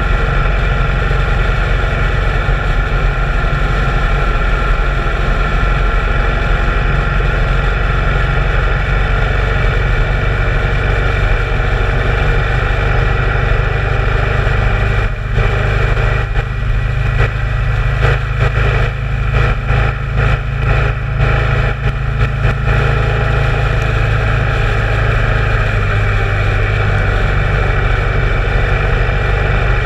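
Motorcycle engine running steadily at cruising speed, with wind rushing over the bike-mounted camera's microphone. In the middle, for several seconds, the sound stutters in a series of brief dips before it settles back to a steady drone.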